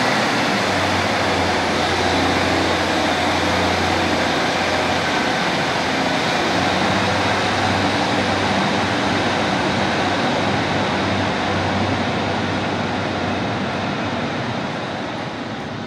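Class 155 diesel multiple unit pulling out of the platform, its underfloor Cummins diesel engines working as it accelerates away. The sound is loud and steady, then fades near the end as the train draws off.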